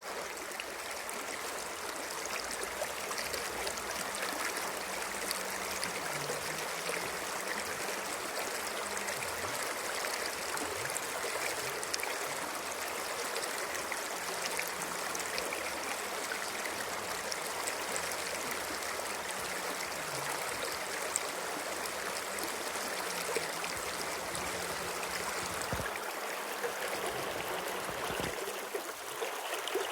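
A stream of water running steadily, an even rushing and trickling.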